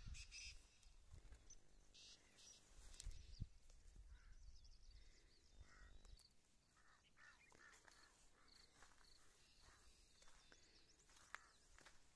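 Near silence: faint outdoor ambience with a low rumble in the first half, then scattered faint bird chirps.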